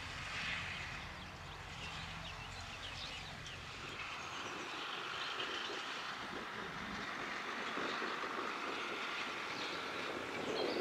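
Massey Ferguson 390 tractor's diesel engine running steadily under load while pulling a rotary hay rake, with a light mechanical clatter from the rake. The low engine note fades about four seconds in, leaving mostly the higher clatter and hiss of the machinery.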